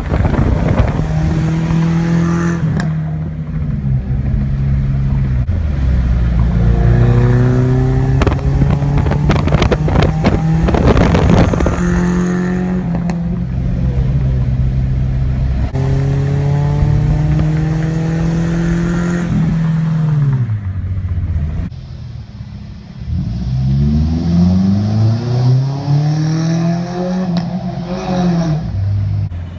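Car engine and exhaust running under load, held at steady revs for long stretches, then dropping off, then rising and falling in several short revs near the end.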